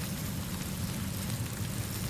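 Steady rainfall hissing, with a continuous low rumble underneath.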